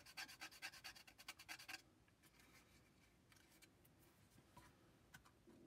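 Painter's tape being handled and pressed onto a small cardstock box: a fast run of fine crackling scratches for nearly two seconds, then near silence with a few faint taps.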